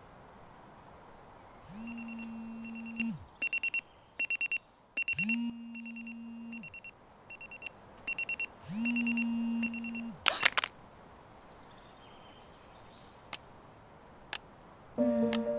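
Smartphone alarm going off on a bedside table: rapid groups of high electronic beeps, with a low buzz from the phone vibrating in three pulses of about a second and a half. The alarm stops about ten seconds in, and music starts near the end.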